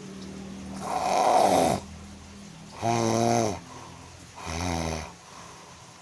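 Snoring in sleep: three snoring breaths about a second and a half apart, the first rasping and the next two lower and buzzier.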